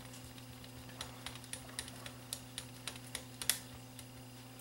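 Light, irregular clicks and ticks of small parts of an electric fan's motor and pivot assembly being handled, over a steady low hum.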